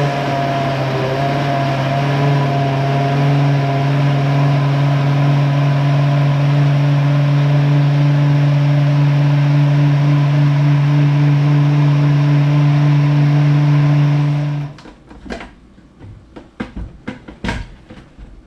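Countertop blender motor running steadily at high speed, puréeing drained whole peeled tomatoes with dried spices. It shuts off suddenly near the end, followed by a few clicks and knocks as the jar is lifted off the base.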